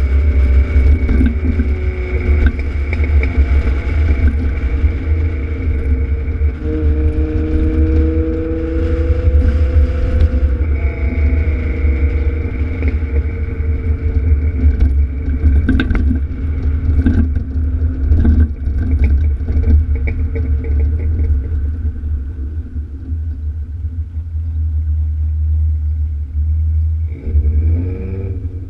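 Alfa Romeo GTV6's V6 exhaust heard from the back of the car while driving, a steady low rumble with the engine note rising and falling as the revs change. Near the end the revs drop and then climb again.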